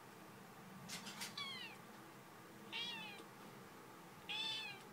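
Tabby kitten meowing, faint, three short high meows that each fall in pitch, spaced about a second and a half apart.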